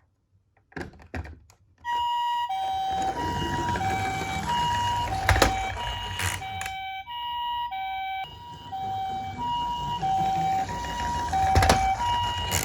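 Toy ambulance's electronic two-tone siren sounding the Japanese ambulance 'pee-poh' pattern, a high note and a low note alternating steadily; it starts about two seconds in after a few clicks. Underneath runs a low rumble, with a few sharp knocks.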